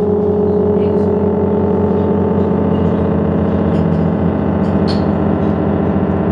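Sustained electronic synthesizer drone: a steady, unchanging low chord opening a live song, with a few faint clicks on top.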